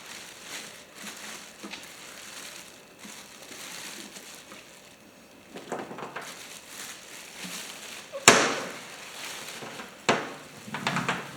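Packaging being handled during an unboxing: plastic and cardboard rustling and crinkling, with a sharp knock about eight seconds in and a smaller one about two seconds later as items are set down.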